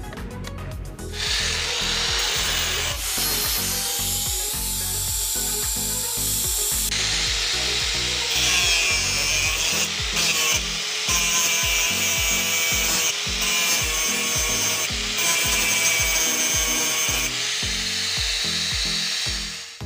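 Angle grinder grinding down the weld on a steel rod held in a vise: a loud, rough grinding with a changing whine that starts about a second in and stops near the end. Background music with a steady beat runs underneath.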